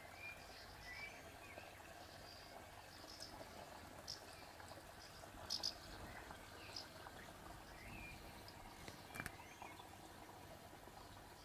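Faint outdoor ambience over a steady low hiss, with scattered short high chirps and a few brief sharp clicks around the middle and near the end.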